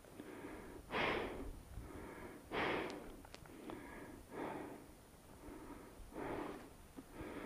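A person breathing close to a helmet-mounted microphone: four faint breaths, roughly two seconds apart.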